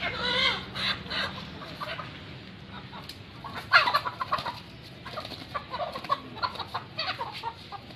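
Live chickens clucking as they are handled and lifted onto a scale, with one loud call about four seconds in.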